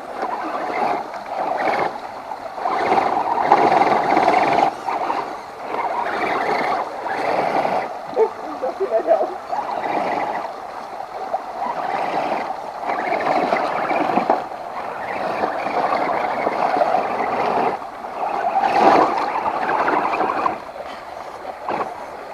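Axial SCX10 II radio-controlled crawler driving through water, its electric motor whining in surges that rise and fall with the throttle, over water splashing and churning.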